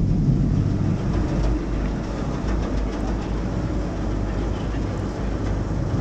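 Tour boat's engine running with a steady low rumble under a rushing noise.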